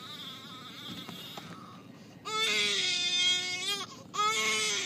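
A child crying: two long, high wails, the first starting a little over two seconds in and the second near the end, with fainter whimpering before them.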